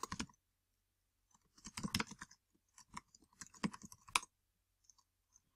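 Typing on a computer keyboard: bursts of quick key clicks at the start, about two seconds in, and from about three to four seconds in, then a few faint taps near the end.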